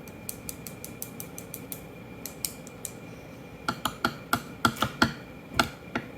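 Plastic takeout sushi container being opened and handled: a run of light crackling clicks, then several sharper clicks and taps over the last couple of seconds.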